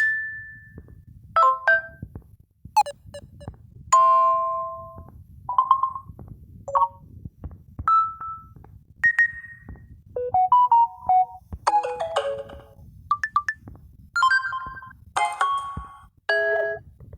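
Samsung Galaxy A11 notification tones played one after another through the phone's speaker: about a dozen short, different chimes and little jingles, each lasting around a second.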